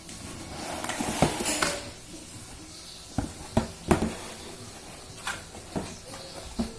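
Unboxing handling sounds: a rustle of packaging from about half a second in, then a string of sharp clicks and knocks as items are taken out and handled.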